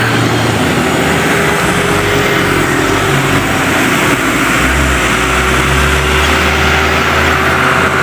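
Traffic on a hill road: a loaded dump truck climbing away and motorcycles passing, a loud steady engine rumble over road noise. A deeper engine drone comes in about halfway through and eases near the end.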